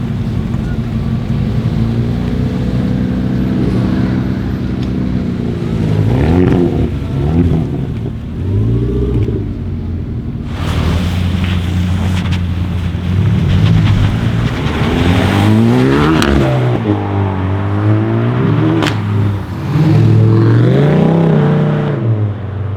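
Hyundai i30 N's turbocharged 2.0-litre four-cylinder running steadily, then revved in a series of short blips that rise and fall, with sharp exhaust pops and crackles among the revs.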